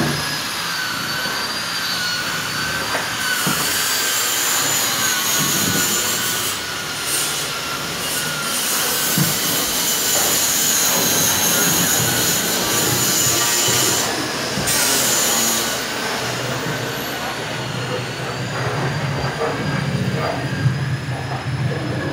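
Steady machine whine over a hiss, with several high tones that drift slightly in pitch, from workshop machinery running continuously.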